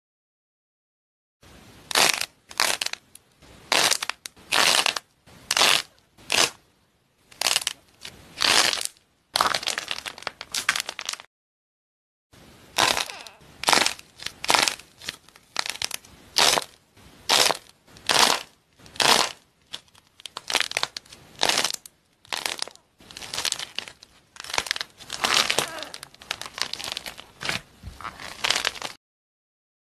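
Hands squeezing and crumbling a dry, crumbly foam-like material, making quick series of crisp crunches and crackles with short pauses between them. The sound stops dead twice, for about a second each time.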